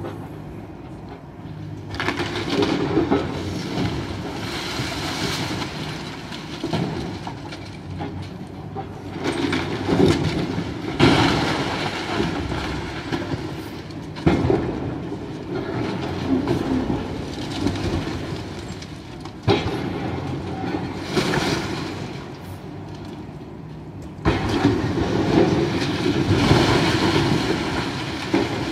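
Building demolition: heavy machinery running steadily underneath repeated bouts of crunching and clattering rubble every few seconds, the longest and loudest near the end.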